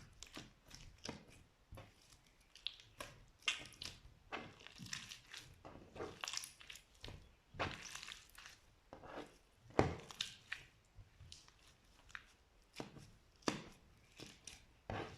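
Slime being handled by hand: irregular sharp clicks, pops and crackles at uneven intervals, the loudest about ten seconds in.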